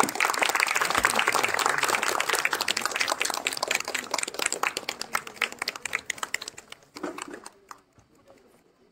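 Audience clapping: dense applause that thins out and dies away about seven seconds in.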